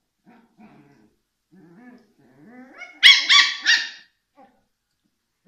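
West Highland White Terrier puppies, six weeks old, play-fighting. Soft little growls run through the first three seconds, then three quick, high-pitched yaps come about three seconds in.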